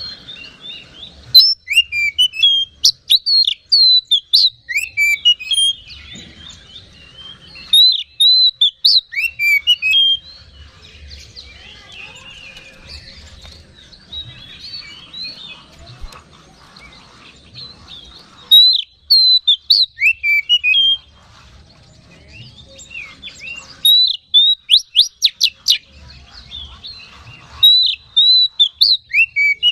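Oriental magpie-robin singing vigorously: loud bursts of rapid, varied whistled notes and slurs, five phrases of two to three seconds separated by pauses with softer chattering between them. This full, heated song is what keepers call 'gacor', used to rouse other magpie-robins.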